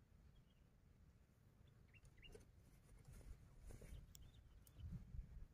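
Near silence: faint outdoor quiet with a few faint bird chirps about two seconds in and a soft rustle near the end as the cloth cover is lifted off a wooden bird cage.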